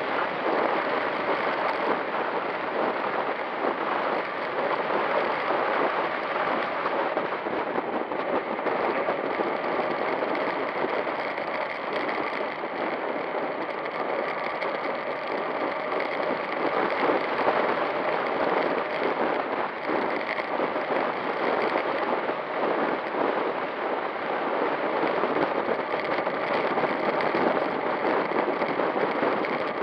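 Steady rushing noise of a road bike riding along on asphalt: wind across the handlebar-mounted camera's microphone mixed with tyre noise.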